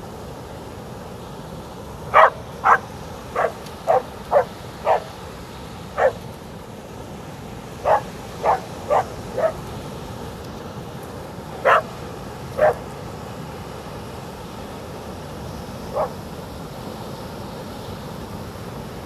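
A border collie barking at breaking waves: about fourteen single barks in several quick runs, then one fainter bark after a pause, over the steady rush of surf.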